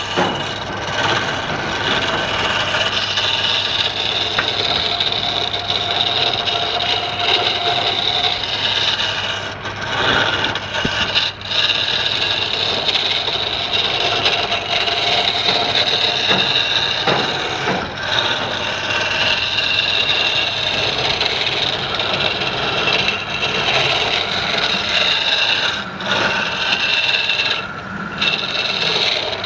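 A wood lathe running while a turning tool cuts into the spinning wood: a steady scraping hiss over the motor's hum, broken by a few brief pauses as the tool comes off the work.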